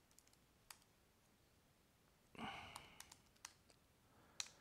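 Faint, scattered keystrokes on a computer keyboard as a password is typed, a few separate clicks, with a brief soft hiss about two and a half seconds in.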